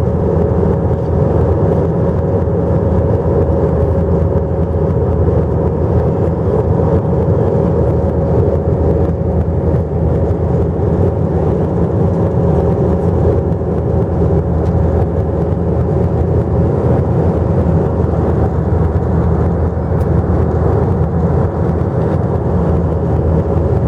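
Passenger-jet cabin noise: the airliner's engines and airflow making a steady low roar with one constant mid-pitched tone, unchanging throughout.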